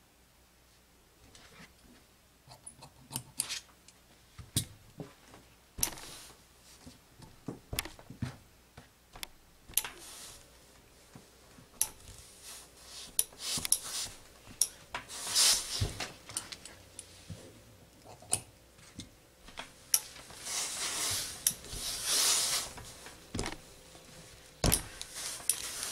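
Hose-fed steam iron pressing a fabric hem on a table: scattered knocks and taps as the iron is set down and pushed along, with hissing bursts of steam, the longest about two-thirds of the way through.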